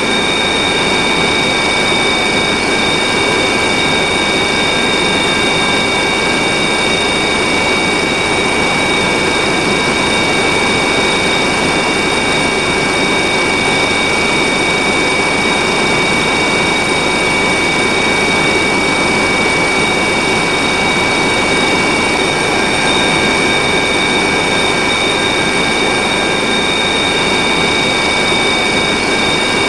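Helicopter in flight heard from inside the cabin: steady, loud turbine and rotor noise with high, steady whines on top.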